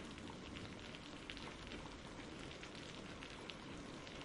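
Faint steady rain falling, with many small drop ticks.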